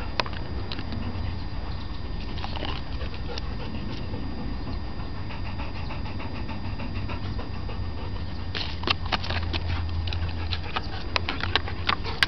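Black Labrador retriever panting, with a run of sharp clicks and rustles in the last few seconds.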